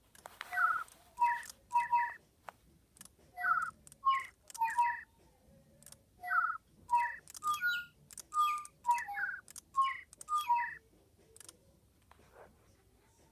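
DigiBirds electronic toy birds chirping: short whistled tweets in quick clusters, stopping about 11 seconds in.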